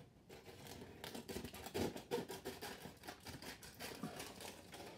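Scissors cutting through a crumpled sheet of aluminium foil, the foil crinkling and crackling with a rapid, irregular run of short snips and crackles.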